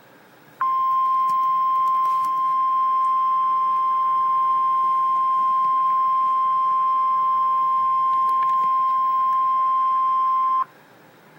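NOAA Weather Radio warning alarm tone, a single steady 1050 Hz tone held for about ten seconds that cuts off abruptly near the end. It is the attention signal that comes right before the spoken emergency warning.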